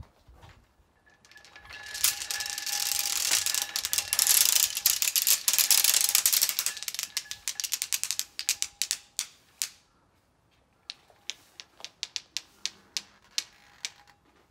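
A temple gong's rope of large wooden prayer beads being shaken, the beads clattering together rapidly while the metal gong rings faintly. The clatter builds, then thins to separate clacks about two a second in the second half.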